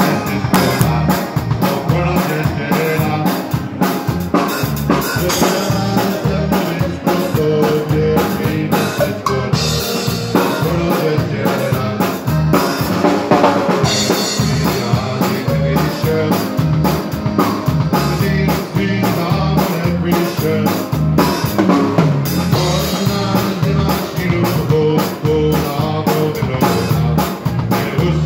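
Live Texas-Czech dance band playing, heard from right behind the drum kit: snare, bass drum and cymbals are close and loud over the band's other instruments.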